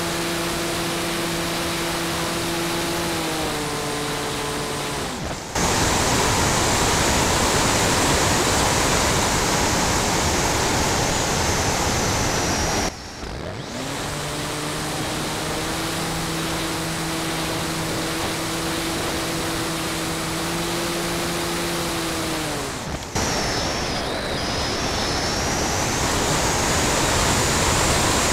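Model airplane's motor and propeller heard from its own nose, with air rushing over the microphone. The throttle changes several times: a droning hum slides lower and then jumps to a louder rushing sound with a high whine, cuts briefly about halfway through, and hums again before sliding down and jumping back up.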